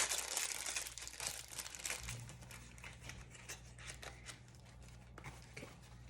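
Packaging being handled and crinkled while a product is unwrapped, a dense irregular crackle that is busiest in the first second and thins out after.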